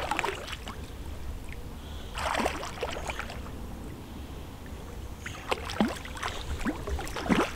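Lake water splashing and sloshing in several irregular splashes a couple of seconds apart, as a hooked carp swirls at the surface beside a landing net being worked in the water.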